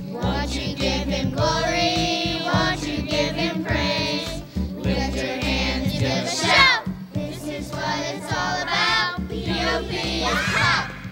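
A song sung by a group of voices together, over instrumental backing with a steady bass line.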